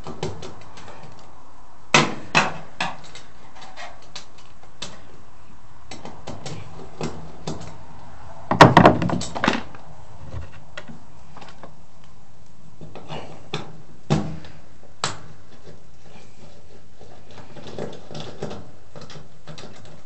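Scattered clicks and knocks of small metal parts and a hand tool working at the cord clamp on the dryer's sheet-metal back panel, loosening the old three-prong power cord. The loudest clatter comes about halfway through.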